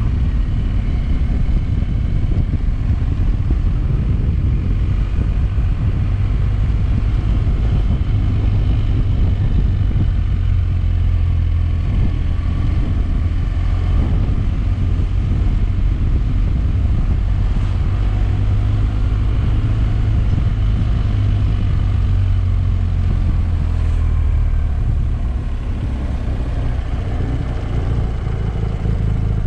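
Motorcycle engine running while being ridden, over a steady low rumble. The engine's pitch rises and falls a few times around the middle.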